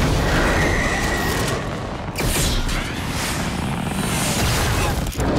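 Sound effects of a spaceship's engines blasting off and flying away: a dense, loud rumble of thrust with a high whine through the first second or so, then several sweeping whooshes as the ship streaks past.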